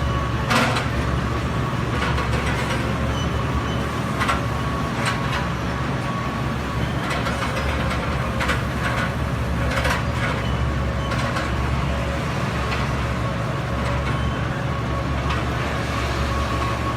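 Mini excavator's engine running steadily with a thin whine, broken every second or two by sharp metallic clanks from the machine's linkage or bucket.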